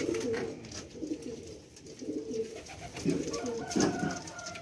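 Domestic high-flyer pigeons cooing in their loft, low coos repeating and overlapping.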